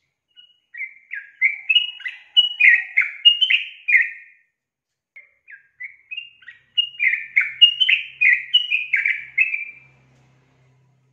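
Female yellow-vented bulbul singing: two runs of quick, bubbly slurred notes, the second beginning about five seconds in and ending shortly before the close.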